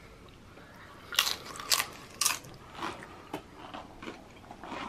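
Someone biting into a loaded nacho tortilla chip and chewing it: three loud, sharp crunches about half a second apart starting about a second in, then softer crunches as the chewing goes on.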